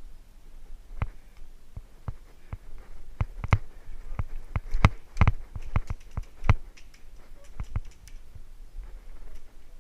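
Airsoft guns firing scattered single shots: a string of sharp cracks at uneven intervals, thickest in the middle stretch and thinning out near the end.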